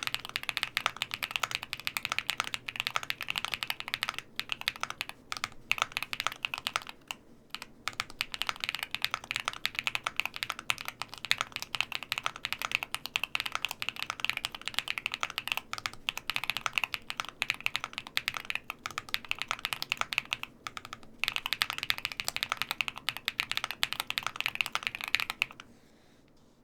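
Continuous fast typing on a QwertyKeys QK75N mechanical keyboard with MMD Princess linear switches, an aluminium plate and full foam. There are brief pauses about 7 and 21 seconds in, and the typing stops just before the end.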